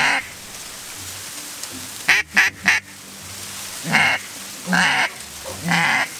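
Duck call blown by a hunter, quacking: a quick run of three short sharp notes about two seconds in, then three separate quacks roughly a second apart near the end.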